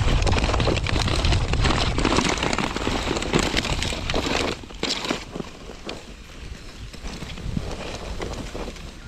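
Sled runners scraping and crackling over a snow track strewn with gravel, with wind buffeting the microphone. The noise drops off about four and a half seconds in.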